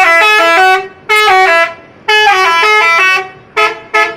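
A bus's multi-tone 'telolet' musical horn plays a tune, loud. It sounds three phrases of stepping notes, then gives two short quick toots near the end.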